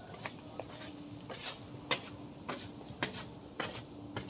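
Footsteps walking at an even pace, about two steps a second, on a hard path, over a faint steady hum.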